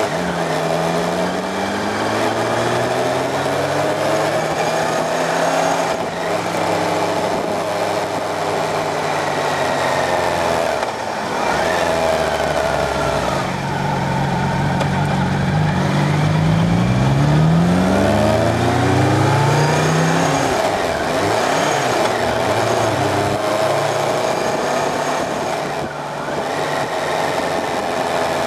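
Motorcycle engine heard on board, running loud and steady with its pitch rising and falling again and again as it accelerates and eases off in traffic.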